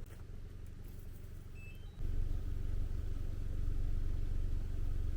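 A motor vehicle's engine running with a steady low rumble, growing louder about two seconds in.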